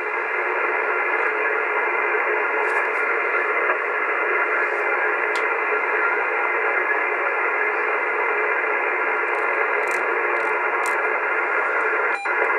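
AOR AR8600 receiver's speaker giving steady band static in lower-sideband mode while it is tuned slowly through the 80-metre band near 3.64 MHz, with faint steady whistles from carriers in the hiss. The sound briefly drops out near the end.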